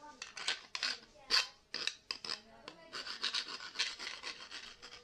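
Hand file scraping back and forth over the freshly cut end of a 22mm copper pipe: a run of short, irregular strokes, quicker and closer together in the second half. It is deburring the ragged edge left by a blunt pipe slice cutter.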